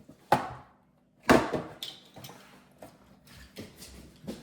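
Two sharp knocks about a second apart, the second the louder, followed by scattered lighter clicks and clatter.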